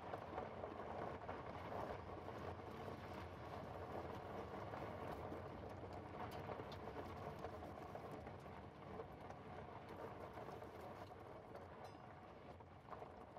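Pickup truck driving on a gravel dirt road: a steady dense crackle and crunch of tyres rolling over loose stones, with a low rumble under it.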